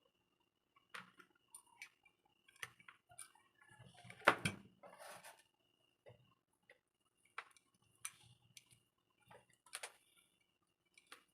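Scattered small clicks and light taps of tools and a USB tester being handled on a repair bench, with one louder knock about four seconds in.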